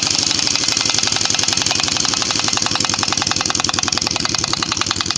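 Gas torch flame hissing steadily at close range with a fast, even flutter, heating the steel around a seized ball joint so it expands and can be pressed out.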